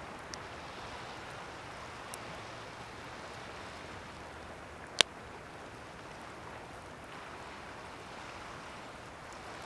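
Pine fatwood campfire crackling, with a few sharp pops, the loudest about five seconds in, over a steady wash of ocean waves.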